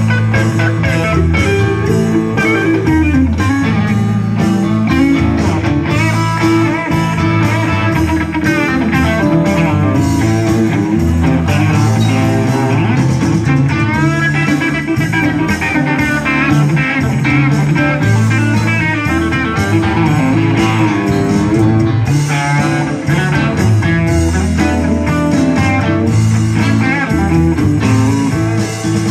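Live blues-rock band playing an instrumental passage: electric guitar lead lines with bent notes over bass guitar and drums.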